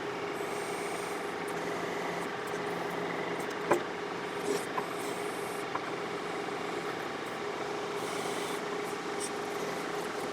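John Deere 4052R compact tractor's diesel engine running steadily while working its 485A backhoe, with a sharp knock about three and a half seconds in and a few lighter clicks soon after.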